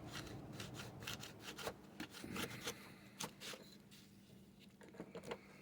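Faint rustling and scattered small clicks of paper cut-outs being handled and laid on a work surface, thinning out near the end.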